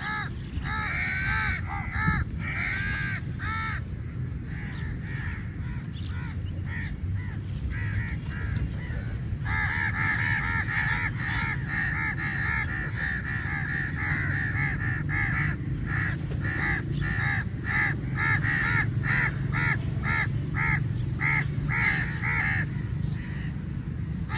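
A large flock of crows cawing, many short harsh calls overlapping, growing denser and more continuous about ten seconds in. A steady low rumble runs underneath.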